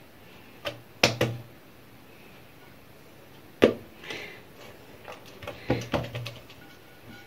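Oiled hands slapping and pressing msemen dough flat against a glazed ceramic platter. The slaps and knocks are sharp and scattered: two about a second in, one near the middle and a quick run of them toward the end.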